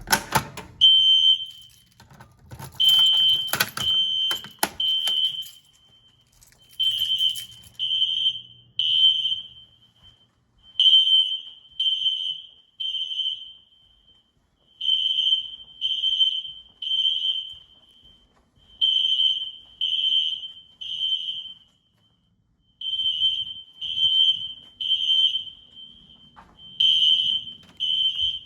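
System Sensor SpectrAlert Classic fire alarm horns sounding in the temporal-three evacuation pattern: three short, high-pitched blasts about a second apart, then a pause, repeating. A few sharp clacks are heard in the first seconds.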